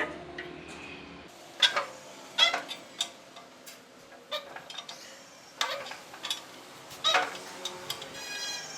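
Irregular sharp knocks and clinks of tools working on a tractor tyre, about a dozen over several seconds, some with a brief metallic ring.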